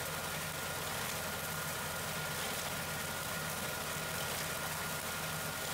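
Massey Ferguson 240 tractor's three-cylinder diesel engine running steadily as it drives a front-mounted reaper binder through wheat, with a thin steady whine above the engine noise.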